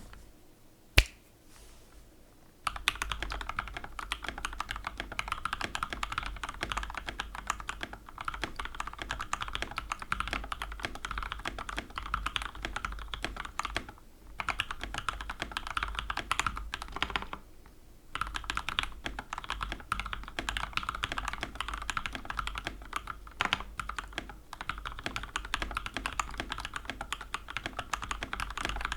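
Continuous fast typing on a BM60 60% mechanical keyboard with an aluminum plate, Gateron Ink Black V2 linear switches lubed with Krytox 205g0 and filmed, and thick PBT OEM-profile keycaps. A single sharp click comes about a second in, the steady typing starts a couple of seconds later, and it pauses briefly twice.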